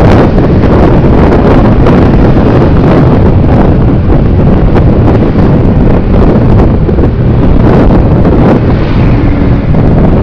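Loud, steady wind buffeting on the microphone of a camera riding on a moving motorcycle or scooter, a dense low rumble with no clear engine tone.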